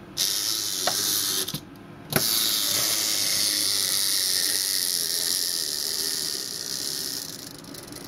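Clockwork spring motor of a small wind-up toy lunar rover whirring as it drives across a fridge door. It cuts out briefly and starts again with a click about two seconds in, then runs steadily, getting quieter near the end.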